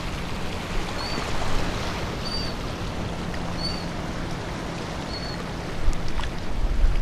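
Water lapping and splashing against the jetty rocks under steady wind noise, with four short high chirps a little over a second apart. Wind buffets the microphone near the end.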